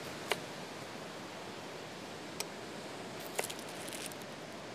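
Chef's knife cutting a red onion on a wooden cutting board: a few separate, sharp taps of the blade against the board, the last ones in a quick little cluster, over a steady background hiss of surf.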